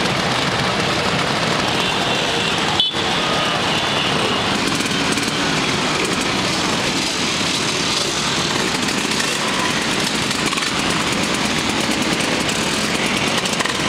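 A large pack of vintage Vespa and Lambretta scooters riding past together, their many small two-stroke engines running in a steady, dense buzz. A short click cuts in about three seconds in.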